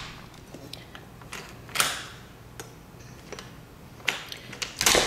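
Scattered clicks and knocks from a back door's brass knob and latch being handled as the door is worked open, with a sharper knock about two seconds in and a quick cluster of clicks near the end.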